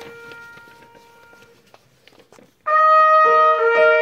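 Trumpet and piano playing: a chord rings out and fades over the first second or so. About two and a half seconds in, the trumpet comes in loudly on held notes with the piano beneath.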